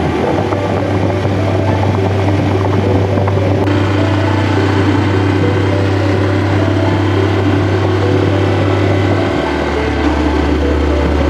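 Yamaha Serow 250 single-cylinder engine running steadily under way, mixed with wind noise from riding. The engine note steps down near the end.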